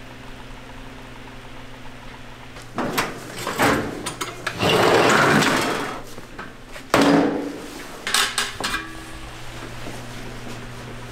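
Steady machine hum with metal clattering and clanking, and a loud rushing noise lasting about a second and a half near the middle.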